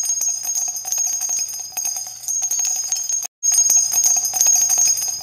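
Small bells jingling with a bright, sustained ringing and many quick strikes, broken by a brief dropout a little over three seconds in.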